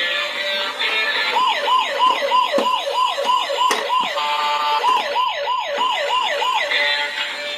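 Electronic toy police siren: a fast string of falling wails, about three a second, broken briefly by a steadier tone about four seconds in.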